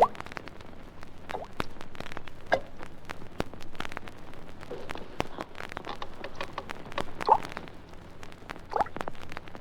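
Slow water drips falling one at a time, each a short rising plink, about every one to two seconds. This is the drip effect of a water-torture scene. Record surface crackle and clicks run through it.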